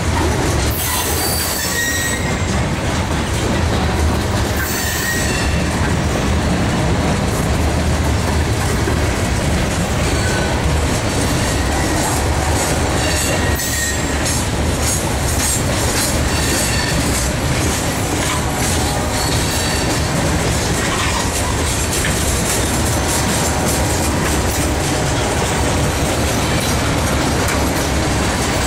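Freight train cars rolling past: a steady loud rumble of covered hoppers and then tank cars, with wheels clacking on the rails and brief high flange squeals now and then.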